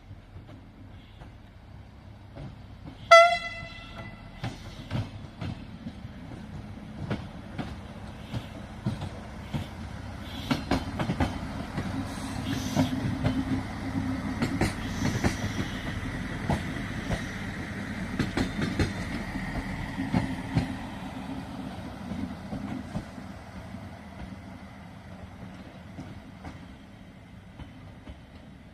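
Siemens Desiro diesel multiple unit giving one short horn blast, then passing with its engine running and its wheels clicking over the rail joints, growing louder and then fading away.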